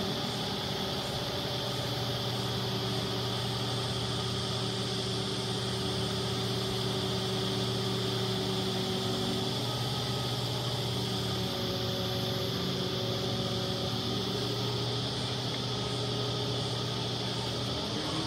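KATO mobile crane's engine running at a steady pitch while it hoists a prefabricated wall panel, with a thin high whine alongside.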